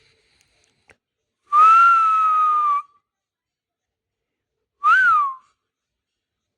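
A person whistling: one long, nearly steady note lasting about a second, then a short note that rises and falls about three seconds later.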